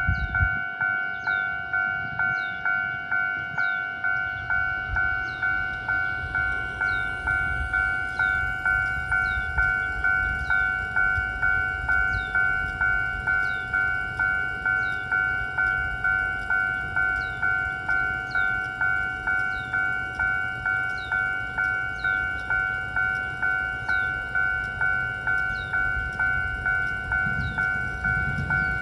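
Railway level-crossing warning bell ringing in a steady repeating ding, about two strikes a second. Underneath, the low rumble of an approaching train builds from about four seconds in and grows louder near the end.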